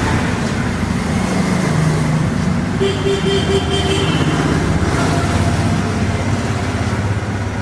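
Road traffic: motor vehicle engines running with continuous road noise.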